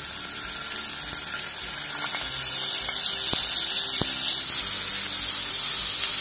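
Parboiled cauliflower florets sizzling in hot oil in a kadai, the hiss growing louder as more wet florets go in. Two sharp clicks sound a little past the middle.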